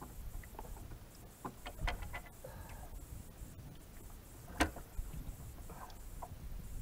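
Low rumble of wind on the microphone with scattered light clicks and knocks, one sharper knock a little past halfway.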